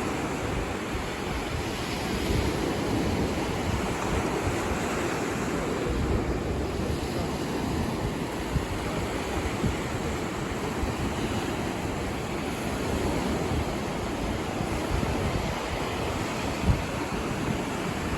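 Ocean surf breaking and washing on a sandy beach, a steady rushing wash with wind blowing across the microphone and a couple of brief low buffets.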